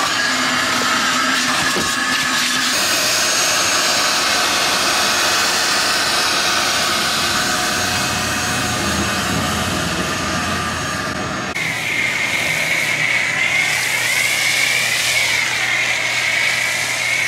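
Vacuum cleaner running steadily over a car's interior, a rushing sound with a thin whine. About two-thirds of the way in it cuts abruptly to a pressure washer spraying snow foam through a foam cannon: a hiss that wavers in pitch over the washer's steady low hum.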